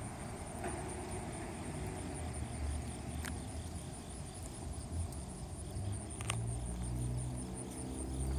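Insects chirping in a high, steady, evenly pulsed rhythm over a low rumble that swells near the end, with two sharp clicks in the middle.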